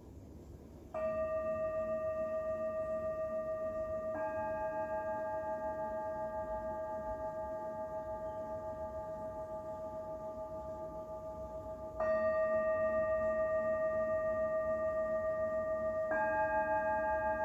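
Two singing bowls struck in turn, one and then a second with a slightly different set of tones about three seconds later, each ringing on for many seconds with a slow wavering pulse; the pair is struck again in the same order near the end.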